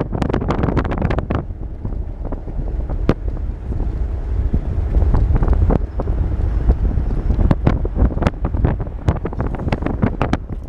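Wind buffeting the microphone of a camera held at a moving car's window, over a steady low road rumble, with frequent sharp irregular pops.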